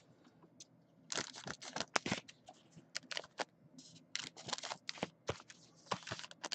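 Wrappers of Donruss Elite football card packs being torn open and crumpled: a quick run of short rips and crinkles starting about a second in.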